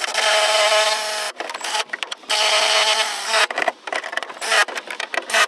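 Cordless drill driving a screw into an untapped hole in sheet metal, with the screw going in hard. The motor whines steadily for over a second, stops, runs again, then comes in short stuttering bursts in the second half.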